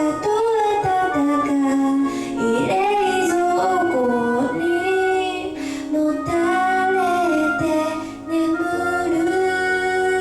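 A song: a high female voice sings a melody over instrumental accompaniment.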